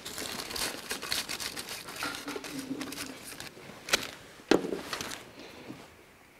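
Thin plastic film crinkling and rustling as it is pulled out and handled by hand, with two sharp clicks near the middle.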